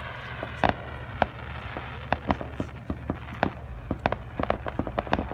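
Fireworks bursting: sharp bangs and pops, scattered at first with two loud cracks in the first second or so, then a dense crackling run of quick pops from about four seconds in.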